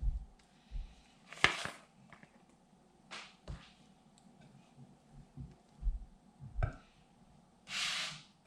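Kitchen utensils and bowls being handled during cake frosting: scattered light knocks and thumps and a few short scrapes, the longest scrape near the end, over a faint steady hum.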